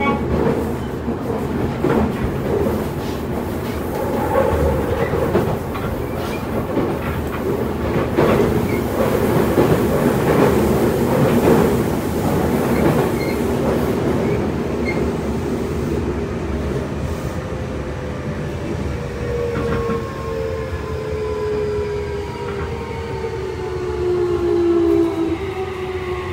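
Toei 6300-series subway train heard from inside the car: wheels running on the rails, with repeated clicks over rail joints. In the second half, the whine of its Mitsubishi IGBT-VVVF inverter and traction motors falls slowly in pitch as the train brakes on the approach to the next station.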